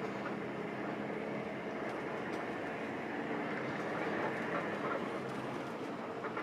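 Mercedes-Benz 1526 intercity bus running at road speed, heard from inside the cabin: a steady engine hum under road and cabin rumble, with a few faint clicks.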